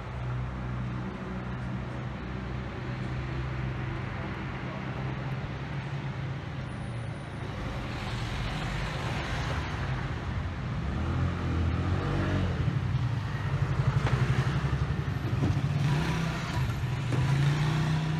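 Road traffic: a motor vehicle's engine humming steadily, with vehicles passing that grow louder in the second half.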